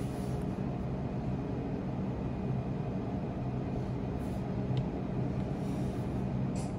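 Steady low hum and hiss of room tone, with a couple of faint short taps.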